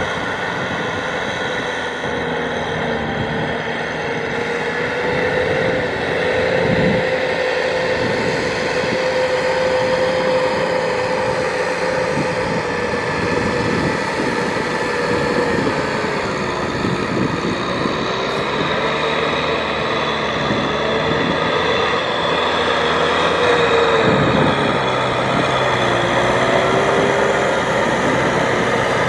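Kubota M6040SU tractor's diesel engine working hard under load, its pitch sagging and recovering several times, as the rear rotavator churns through deep mud and water.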